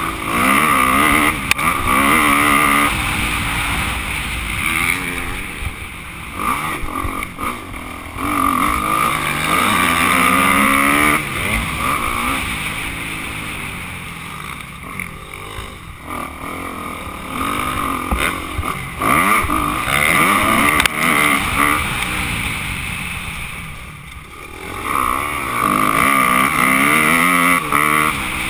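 Motocross bike engine revving up and falling back again and again as the rider accelerates, shifts and rolls off around the track.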